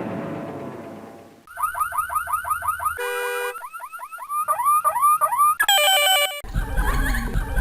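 Electronic car alarm running through its tone patterns: a fast repeated rising whoop, a short stepped beep, a slower warbling chirp, then a brief steady tone. It starts as a rumbling noise fades out, and about six seconds in a different, denser sound with a low rumble cuts in.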